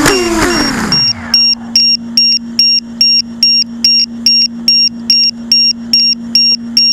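FPV quadcopter's motors spinning down, their whine falling in pitch and dying out about a second in. Its buzzer then beeps steadily at a high pitch, about two and a half beeps a second, over a steady low hum.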